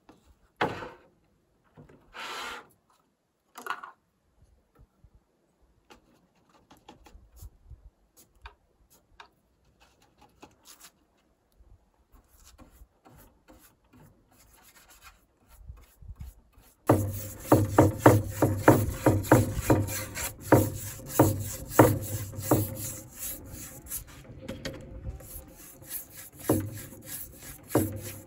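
Old chestnut boards being worked with rubbing, rasping strokes. A few faint handling sounds come first; about two-thirds in, a louder run of repeated strokes starts over a steady hum.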